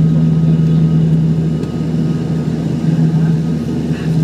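ATR 42 twin-turboprop engines and propellers at takeoff power during the initial climb, heard inside the cabin as a loud, steady drone with a strong low hum.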